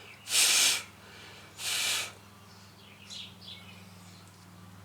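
Two short puffs of breath blown out, hissing, about a second apart, at the welded plastic to cool it; faint bird chirps follow.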